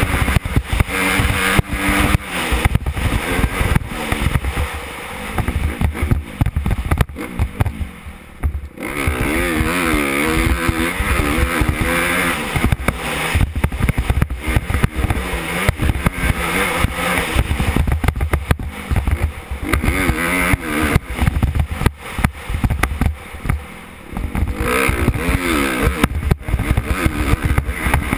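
2014 Honda CRF250R's single-cylinder four-stroke engine being ridden on a dirt track, its pitch climbing and falling quickly as it revs up and down through the gears. It eases off briefly about eight seconds in and again a few seconds before the end.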